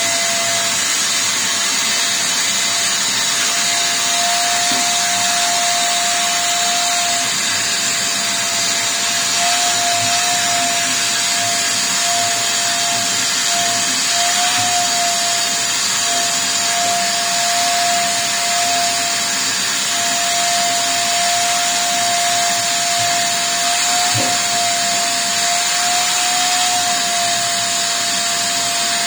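An electric motor running continuously, a steady high whine over a loud hiss, its pitch wavering slightly. There is one light knock about 24 seconds in.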